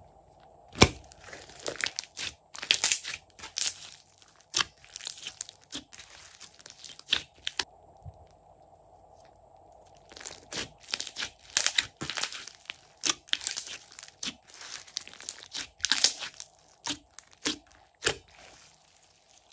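Hands stretching, squeezing and poking glossy slime, making sticky crackling pops and squelches in quick clusters, with a pause of about two seconds near the middle.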